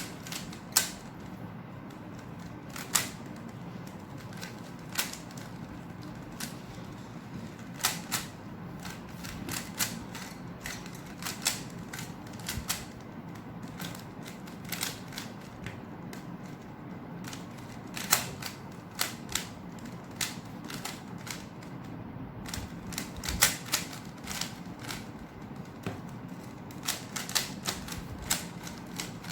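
Plastic Rubik's Cube layers being twisted, giving irregular sharp clicks and clacks, singly and in quick runs, over a steady low hum.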